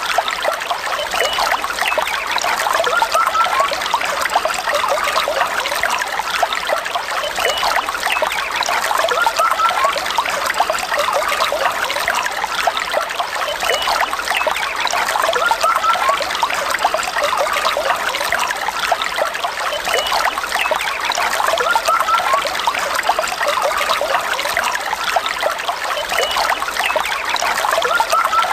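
A shallow stream trickling and babbling over stones, a steady, continuous rush of water. The recording is looped, repeating about every six seconds.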